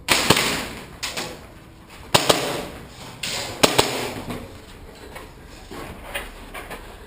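A series of sharp knocks and bangs at irregular intervals, loudest about two seconds in and again at about three and a half seconds, fading to smaller knocks toward the end.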